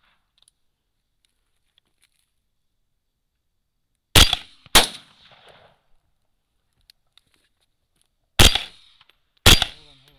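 Four rifle shots fired at running coyotes: two about half a second apart, then two more about a second apart, each with a short echo.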